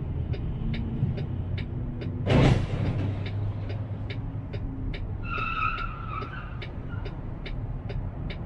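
Vehicle engine and road noise heard in the cab, with a rapid even ticking about three times a second. About two seconds in comes a loud, short hiss-like burst, and around five seconds a wavering squeal.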